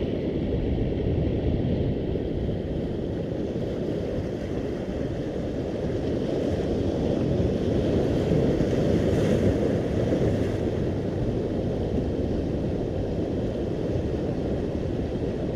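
Steady low rush of wind buffeting the microphone, mixed with waves washing along a rocky shore.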